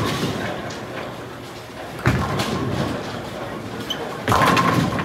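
Bowling alley sounds: a ball rolling and pins crashing, with a sudden clatter about two seconds in and a louder crash about four seconds in.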